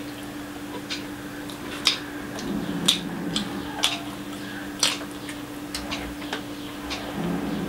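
Close-miked eating of fried rice and egg curry: sharp wet mouth clicks and smacks while chewing, about one a second, loudest about two, three and five seconds in. A steady low hum runs underneath.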